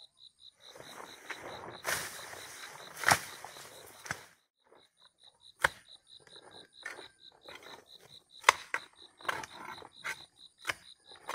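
Wooden-handled digging tool scraping and rustling through soil and grass, then striking the earth in a run of sharp knocks about once a second as it digs into a ground-wasp nest. An insect chirps fast and evenly in the background.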